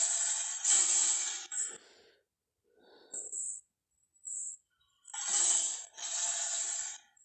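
Indoraptor dinosaur creature sound effects: a run of noisy, growl-like calls in separate bursts with silent gaps between them, two longer ones near the end.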